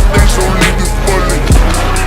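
Hip hop backing track with deep bass kicks and regular hi-hats under a melodic instrumental line.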